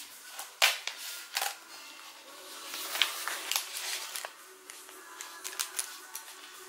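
Scattered sharp clicks and light crackling as a laptop's LCD panel and plastic display lid are handled and eased apart, the adhesive tape holding the panel letting go.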